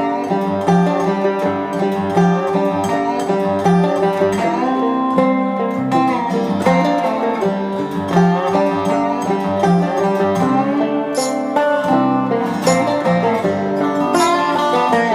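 Background bluegrass-style music with a fast picked banjo and guitar.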